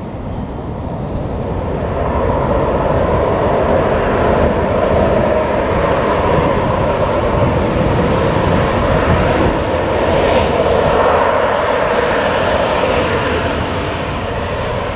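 Boeing 737-800's twin CFM56-7B jet engines running loud on its landing roll. The noise swells about two seconds in, holds steady, then eases near the end.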